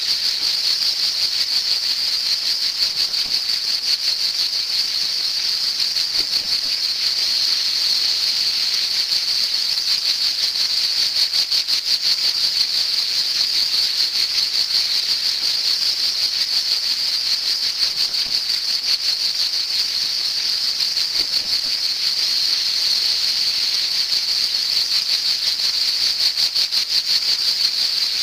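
Cicadas singing: a steady, high-pitched buzzing rattle made of very fast, even pulses, running without a break.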